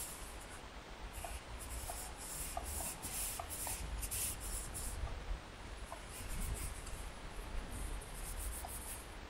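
Paper towel rubbing against a plastic oil filter housing cap as it is wiped clean, in repeated short scrubbing strokes with a brief pause about five seconds in.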